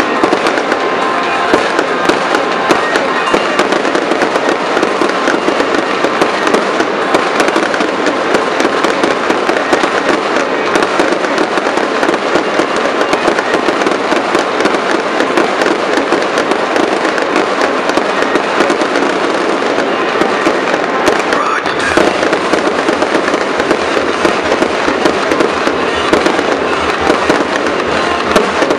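Fireworks display firing nonstop: a dense, unbroken crackle of overlapping pops and bangs as shells are launched and burst.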